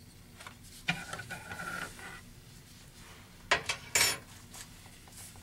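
A small metal stain can handled inside a clear plastic tub while a cotton rag is dipped into it: scattered clicks and a ringing knock, then two sharp knocks close together about three and a half seconds in, the loudest sounds.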